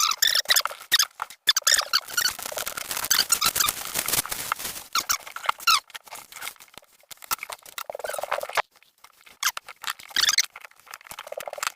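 High squeaky whistling sniffs and snorts through a stuffed-up nose, coming on and off in short runs. The squeaking comes from nasal congestion caused by bad allergies.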